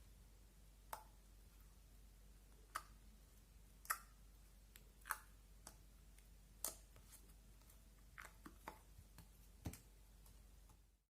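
Slime being handled and squeezed, giving scattered soft wet clicks and pops about a second apart, with a small cluster near the end.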